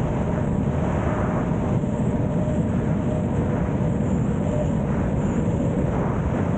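Freefall wind rushing over the microphone during a skydive: a steady, loud buffeting of air with no break.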